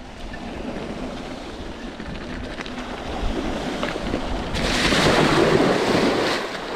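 Mountain bike tyres rolling over a dirt trail, then the bike ploughing through a creek crossing: a loud rush of splashing water from about four and a half seconds in, easing off near the end.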